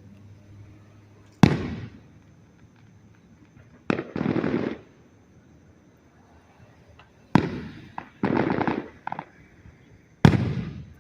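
Aerial fireworks going off: four loud bangs a few seconds apart, each fading away. A rapid crackle follows the second and third bangs.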